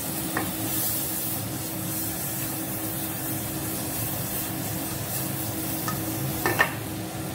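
Butter melting and sizzling in an aluminium pan over a low gas flame, a steady hiss, as the pan is swirled on the burner. The pan knocks twice against the burner grate near the end.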